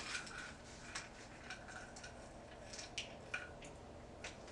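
Faint rustling of bedding with a scattering of small clicks and ticks as someone shifts in bed.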